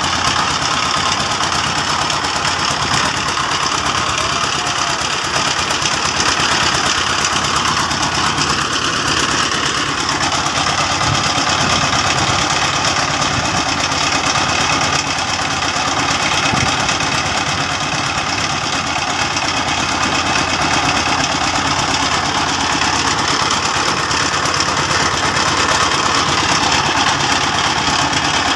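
Engine running loudly and steadily, without a break.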